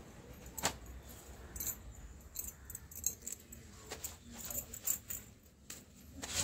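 Wet clothes being handled and scrubbed with a laundry brush on a brick floor: a run of irregular short scratchy strokes and clicks.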